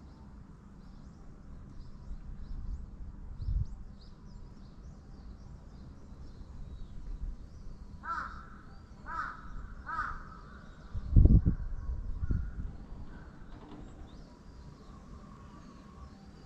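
A crow cawing three times, about a second apart, over faint high chirping of small birds. A low thump, the loudest sound, comes about a second after the last caw, with lesser ones before it and just after.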